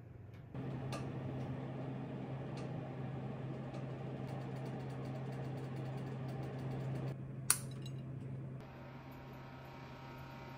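Steady low hum of kitchen room tone, with light handling ticks and one sharp click or tap about seven and a half seconds in.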